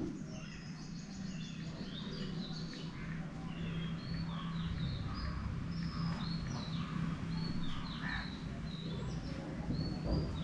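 Birds chirping and calling in the background, many short calls one after another, over a steady low hum.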